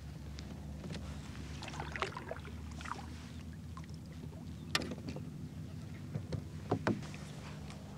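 Hobie pedal-drive fishing kayak under way on calm water: a steady low hum with a few light knocks and clicks, the sharpest about two, five and seven seconds in.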